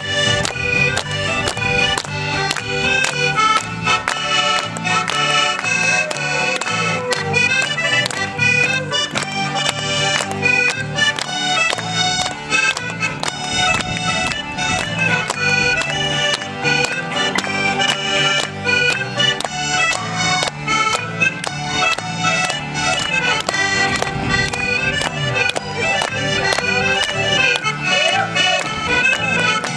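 Accordion playing a lively tune, backed by a small band with a second accordion and guitar, over a steady beat.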